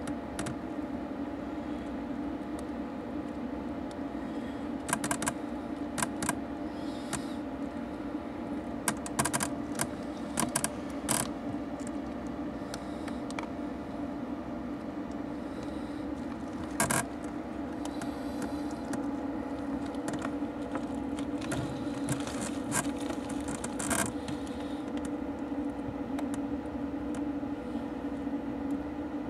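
A steady low mechanical hum with a few fixed tones, and sharp clicks and knocks scattered through it. The clicks come as a cluster about a third of the way in, with single ones later.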